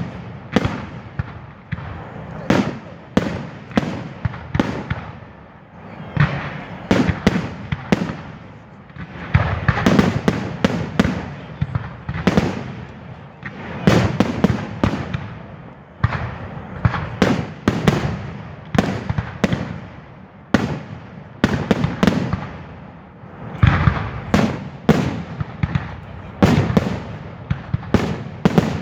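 Fireworks going off in a continuous display: many sharp bangs, often in quick clusters, each followed by a rumbling echo.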